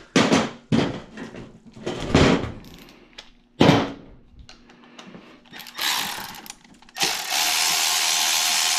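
Cordless power tool running in several short bursts, then a steady run of about two and a half seconds near the end, backing out a 10 mm bolt while the intake manifold is being removed.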